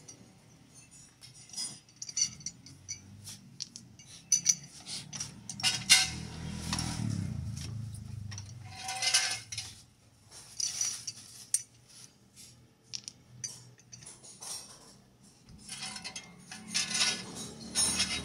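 Metal tools and parts clinking and knocking against each other in irregular bursts during under-car repair work, with a low rumble swelling around the middle.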